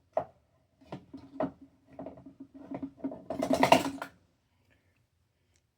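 Objects being handled and moved around on a desk: a run of knocks, clatters and short scrapes, loudest near the middle, stopping after about four seconds.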